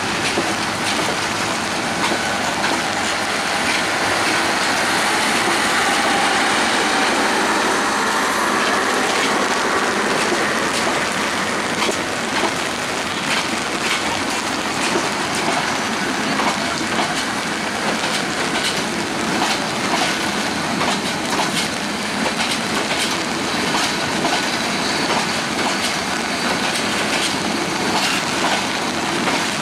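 Bangladesh Railway Intercity express coaches rolling past at speed, with a steady rumble and rush of rail noise. The wheels clatter over the rail joints in irregular clicks, which come more often from a little before halfway.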